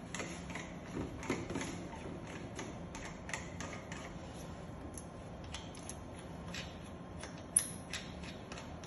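Irregular light metal clicks and taps from the parts and knobs of a Tosei SS21 semi-automatic shumai machine being handled and adjusted, with one sharper click about seven and a half seconds in.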